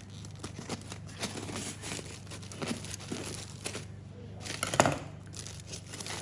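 Aluminium foil being crinkled and torn open by hand in many short, irregular rustles, with one louder crackle a little under five seconds in.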